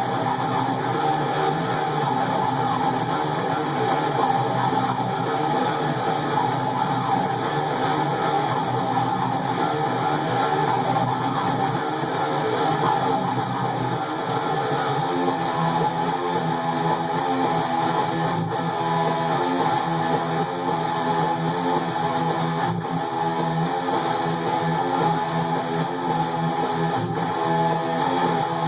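A heavy metal instrumental played on an ESP/LTD M-17 seven-string electric guitar, with no pauses.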